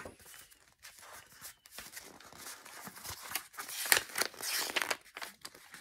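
Paperback picture book's pages rustling as they are handled and turned, with a louder flurry of paper rustling about four seconds in.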